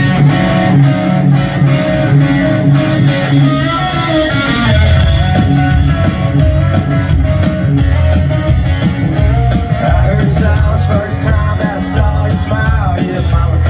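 Live country-rock band playing a song's instrumental intro: guitar melody over bass and drums, the low end filling out about four and a half seconds in.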